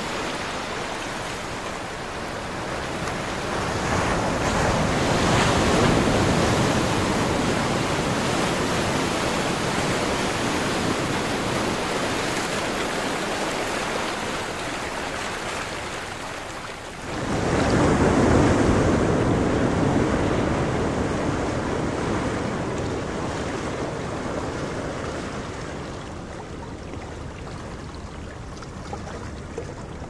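Ocean surf breaking and washing against a seawall, a continuous rush of water that swells twice, the second surge coming in suddenly a little past halfway.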